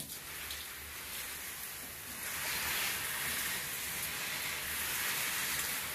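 Water from a handheld shower head spraying and spattering onto areca palm fronds, rinsing dust off the leaves: a steady hiss that gets a little louder about two seconds in.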